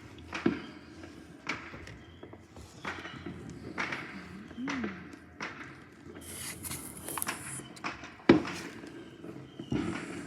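Fireworks going off in the distance: irregular sharp bangs, about one a second, the loudest about eight seconds in, with a high hiss for a second or so just before it.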